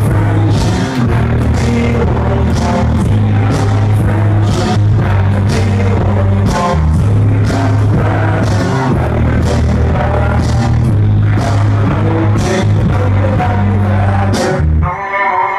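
Loud electronic dance music from a club DJ set, with a heavy bass line and a steady beat. About a second before the end the bass drops out and the track changes.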